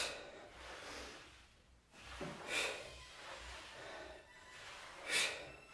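A woman breathing out hard three times, about two and a half seconds apart, in time with the effort of each reverse lunge.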